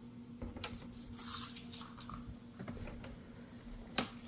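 Light handling noise, scattered small clicks and rustles, with one sharp click near the end, over a faint steady hum.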